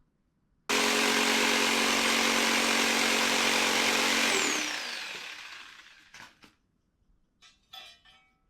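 Electric power tool switched on, running at full speed for about three and a half seconds, then switched off and spinning down over a couple of seconds with a falling whine. A few light knocks follow near the end.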